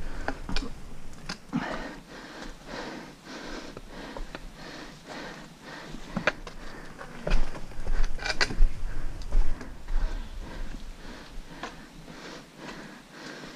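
A hiker breathing close to the microphone while walking, with footsteps on rock and dirt and irregular clicks of trekking-pole tips striking stone.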